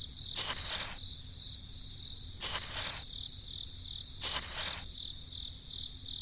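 Insects chirping in a steady, high, evenly pulsing trill, with a louder hissing buzz three times, about every two seconds.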